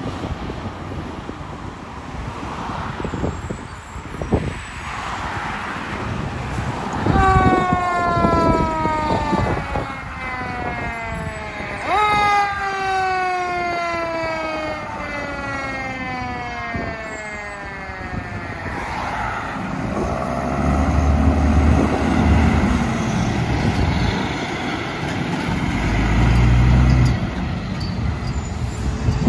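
A fire department aerial ladder truck's siren slides slowly down in pitch, jumps back up once partway through, and winds down again. Then the truck's diesel engine runs loud and low as it drives past.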